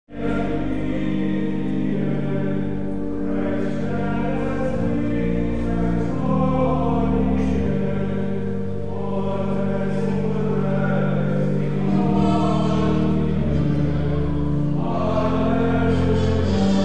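A choir singing sacred music, the voices moving over long held low notes.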